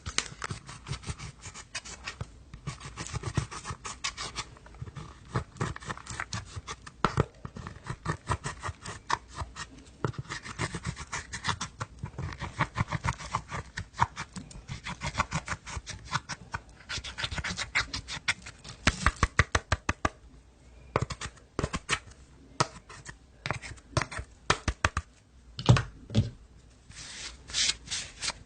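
Hands squishing and poking slime: a rapid, uneven run of sticky clicks and crackles, with a few louder snaps.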